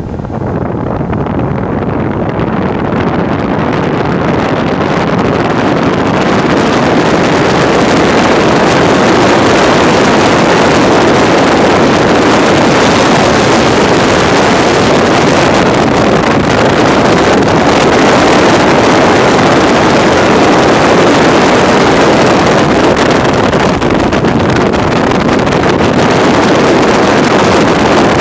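Loud rush of wind over a fast-moving camera's microphone during a high-speed downhill skateboard run. It builds over the first few seconds as speed picks up, then holds steady.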